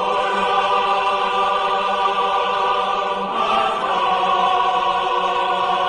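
A choir singing one sustained chord on an open vowel, held steady with a slight shift about three seconds in.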